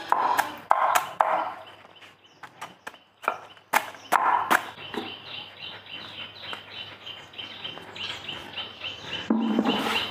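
Farmyard sounds: chickens clucking between sharp knocks in the first half, then a steady run of quick high chirps, about three a second, from about halfway on.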